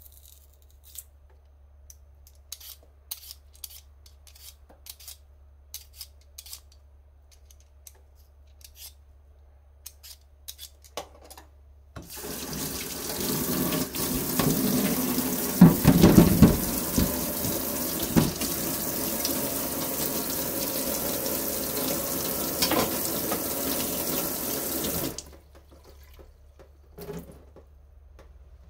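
Faint, scattered scraping strokes of a vegetable peeler on a potato, then a kitchen tap turned on about twelve seconds in, running water steadily into the sink for about thirteen seconds before it is shut off abruptly. The running tap is by far the loudest sound.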